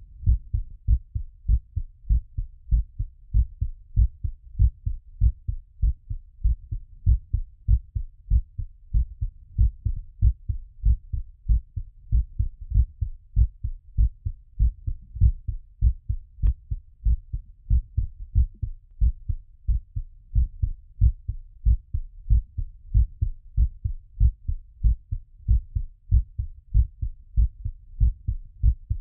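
Human heartbeat heard through a stethoscope during recovery after exercise: a steady run of regular, low, dull beats.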